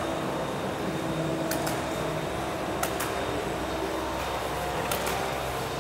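Steady hum and hiss of a large exhibition hall's background noise, like ventilation, with a few faint clicks.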